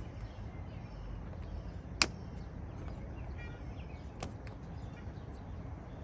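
Two sharp clicks, a very loud one about two seconds in and a fainter one about two seconds later, over a steady low outdoor rumble.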